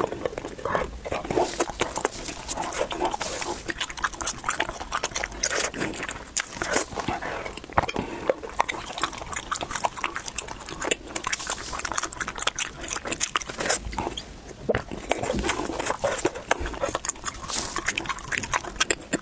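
Close-miked mouth eating sounds: biting off and chewing pieces of a long candy stick, a dense, irregular run of sharp, wet clicks and smacks.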